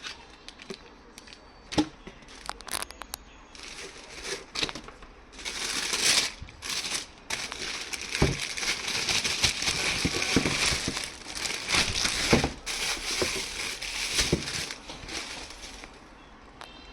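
Sneaker packaging being handled: scattered taps and rustles at first, then from about five seconds in roughly ten seconds of steady crinkling and crumpling, with a few louder knocks, fading near the end.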